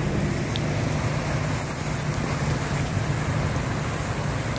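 Steady traffic rumble from idling trucks and vehicles held in a jam, with an even rushing noise over it.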